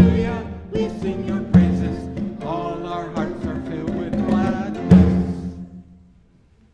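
A man and a woman singing a hymn refrain with hand-drum accompaniment, a low drum stroke landing three times. The last note fades out about six seconds in.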